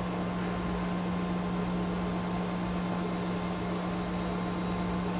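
OD (cylindrical) grinder running with a steady hum, its wheel plunge-grinding a metal part held between centers.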